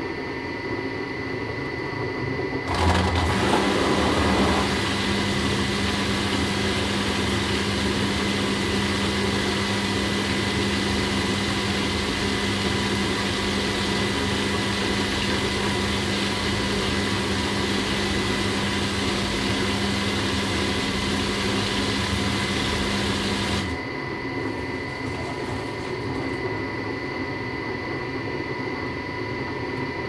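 Washing machine motor starting about three seconds in with a brief louder surge, then running the drum with a steady hum and a wash of noise, and stopping about six seconds before the end.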